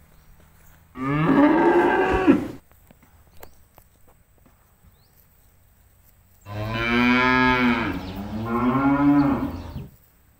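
Cattle mooing: one moo about a second in, then a longer moo in two parts starting past the middle.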